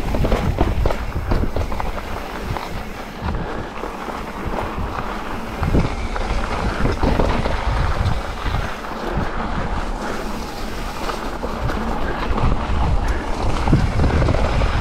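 A mountain bike on a rough, rocky trail, with a steady rumble from the tyres and a dense run of small knocks and rattles from the bike, and wind buffeting the microphone.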